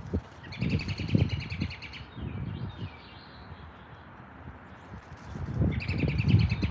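Small songbird singing two rapid trills of quickly repeated high notes, one about half a second in and another near the end, over irregular low rumbling bumps.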